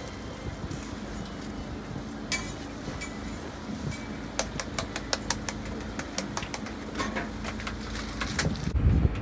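A steady low hum, with a quick run of sharp clicks and taps from about four seconds in: a metal knife tapping and scraping on a crepe griddle as a folded crepe is cut.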